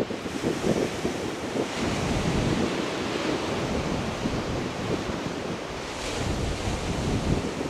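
Wind buffeting the microphone: an uneven, gusty low rumble over a steady hiss.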